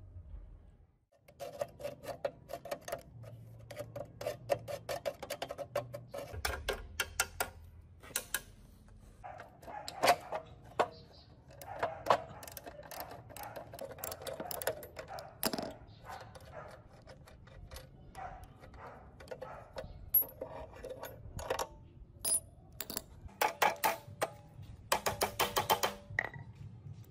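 Ratchet wrench clicking in quick runs on a bolt of a rusted metal cut-off saw's pivot bracket, with separate hammer blows on the steel base in between.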